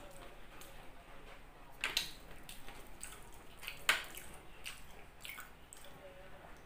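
Close-up eating sounds: wet chewing and mouth clicks of someone eating rice and omelette by hand, with two louder sharp clicks about two and four seconds in.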